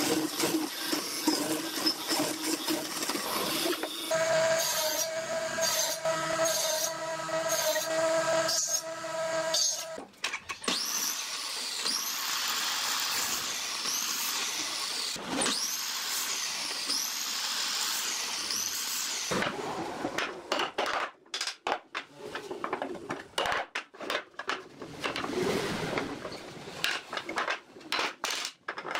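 Woodworking tools at work. A power tool motor runs steadily for several seconds, then come repeated cutting strokes about every second and a half, and in the last third a run of short, sharp knocks and clicks.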